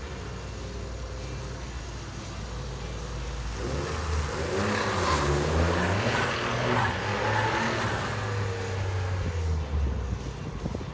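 Suzuki Carry's turbocharged K6A three-cylinder engine idling steadily, then revved up and down several times for about six seconds before settling back.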